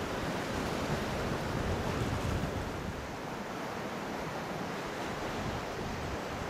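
Steady wash of sea surf on the shore, with wind buffeting the microphone; the buffeting eases and the sound drops a little about three seconds in.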